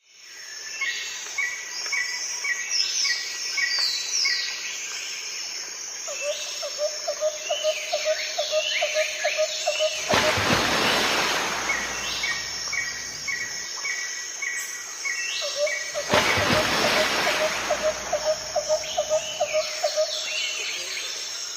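Birds calling and chirping, including a run of rapid repeated notes, with two rushes of noise lasting about two seconds, one about ten seconds in and one about sixteen seconds in. The same sequence of calls recurs about ten seconds apart.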